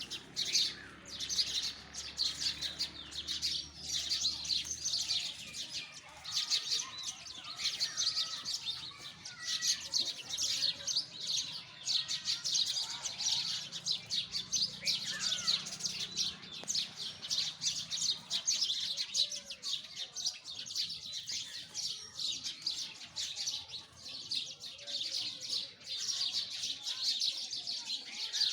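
A group of sparrows chirping continuously, with many short, overlapping chirps and no pauses.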